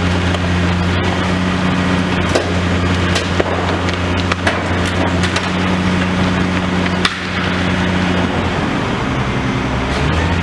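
Demolition excavator's diesel engine running steadily while it breaks up a building, with scattered cracks and knocks of splintering debris. The engine hum drops away for a couple of seconds near the end, then returns.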